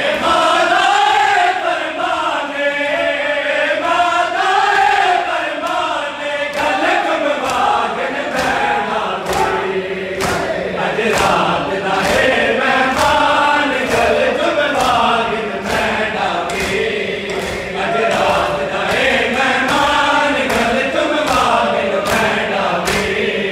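A Punjabi noha chanted by male voices in unison, with the mourners' palms slapping their bare chests in a steady matam beat that is clearer from about six seconds in.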